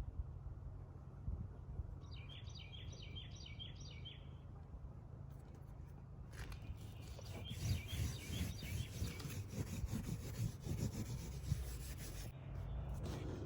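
Birds chirping, a quick run of repeated chirps a couple of seconds in. From about halfway a dense, grainy rubbing and rustling noise starts, with more chirps over it, and it eases off near the end.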